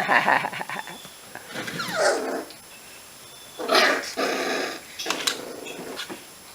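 Five-week-old Icelandic Sheepdog puppies growling and yipping in play, in several short bouts, one with a falling pitch about two seconds in and a longer one about four seconds in.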